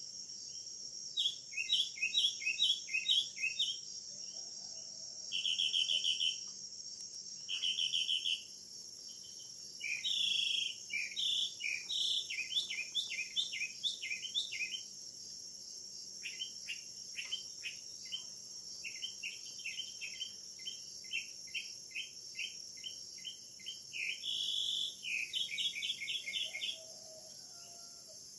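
Rain forest chorus: runs of short, quickly repeated chirping calls, with gaps between the runs, over a steady high-pitched insect hum.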